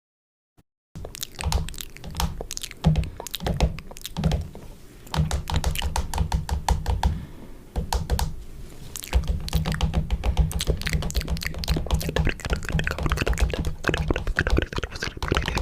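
A dense, irregular run of sharp clicks and taps starting about a second in, over a low steady hum, with two brief lulls.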